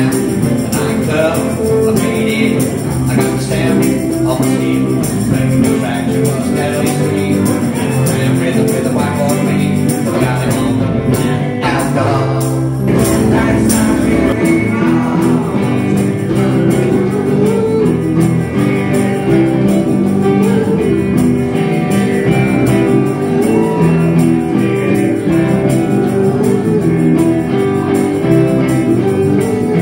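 Live blues band playing, with guitars and tambourine.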